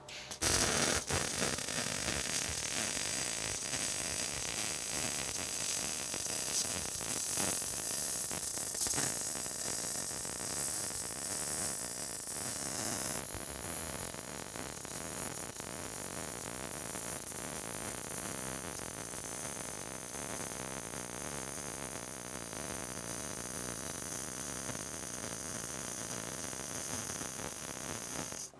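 MIG welding arc on solid (hard) wire, laying the root pass on a 5-inch steel pipe: a steady hiss that starts suddenly with the arc strike.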